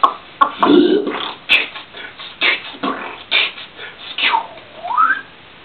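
Beatboxing: mouth-made percussive sounds in an irregular rhythm, ending about four seconds in with a vocal swoop that falls in pitch and then rises again.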